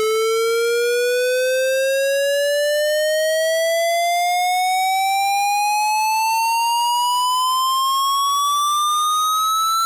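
A loud, steady synthetic electronic tone sweeping slowly and smoothly upward in pitch, with no breaks, roughly tripling in pitch over about ten seconds.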